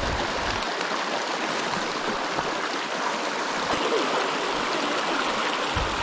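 Shallow, rocky stream rushing steadily over stones and small white-water riffles, heard close up.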